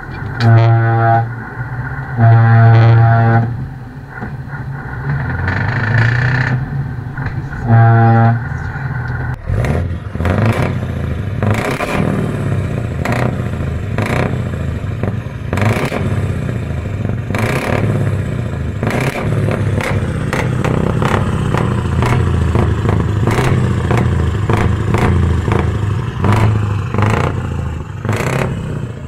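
A lorry's air horn sounds three times: two blasts of about a second each close together, then a shorter third. After that a heavy truck's diesel engine runs with a steady rumble and many short sharp knocks over it.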